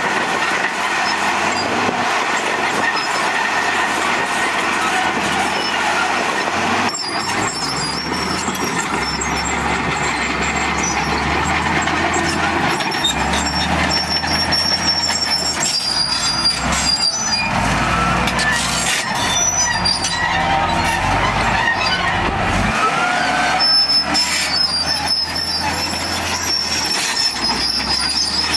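Komatsu D58E crawler bulldozer's diesel engine running while its steel tracks clank and squeal as it moves.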